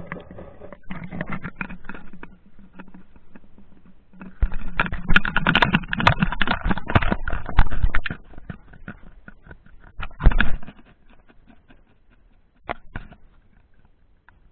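Muffled knocking, scraping and rattling of an underwater action camera's housing as it is hauled up toward a hole in the ice. The clatter is busiest about five to eight seconds in, with one more loud burst around ten seconds, then dies down to a few faint knocks.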